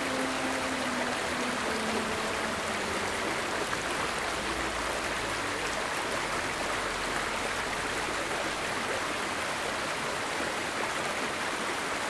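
Shallow forest stream rushing and splashing over rocks in a small riffle, a steady, even sound of running water.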